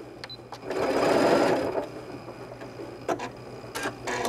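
Janome computerized sewing machine stitching in a short run of about a second, then stopping, with a few small clicks after. This is the machine tying off the end of a top-stitched seam with its automatic backstitch after the reverse key is touched.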